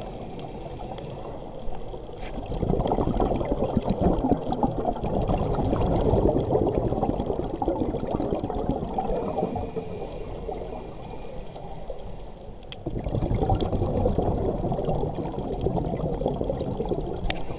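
Scuba regulator exhaust bubbles heard underwater: bursts of bubbling in long stretches, with quieter gaps between as the diver breathes in, the sound dull and muffled.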